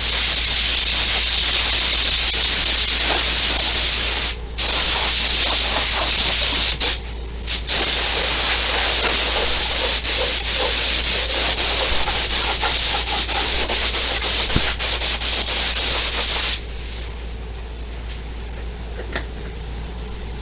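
Primer being sprayed onto a new steel front panel: a steady hiss with two short breaks, about four and seven seconds in. It cuts off sharply about four seconds before the end.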